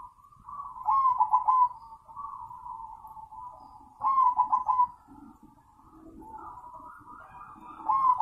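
Crossbred zebra dove (perkutut) cooing: three loud, quick staccato coo phrases about three and a half seconds apart, with fainter bird calls between them.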